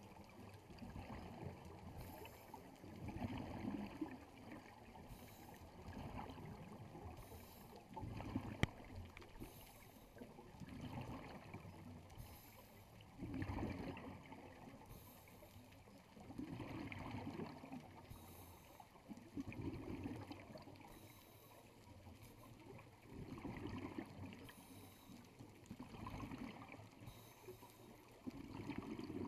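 Scuba regulator breathing underwater, muffled through a GoPro's waterproof housing: bubbling bursts of breath recur every few seconds over a faint hiss of water.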